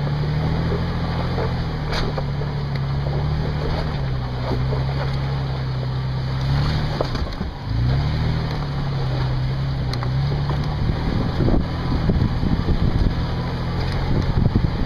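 Off-road 4x4's engine pulling at low speed over a rocky trail, its pitch rising and falling with the throttle; it drops off briefly about halfway through and picks back up. In the last few seconds knocks and rattles from the vehicle working over rocks join in.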